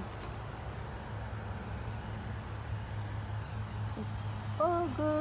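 Insects trilling steadily in a garden, one thin high tone, over a low hum. A short hummed voice sound comes near the end.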